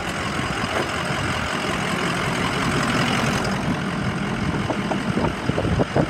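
Ford E-450 Super Duty bus engine idling steadily, warm after running for over an hour.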